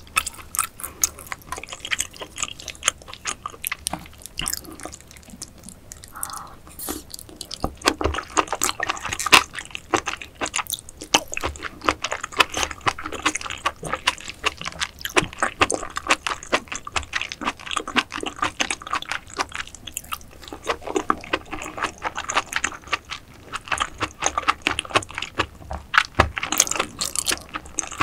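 Close-miked wet chewing of raw oyster and salmon roe: a dense, continuous run of small sticky clicks and squelches from the mouth.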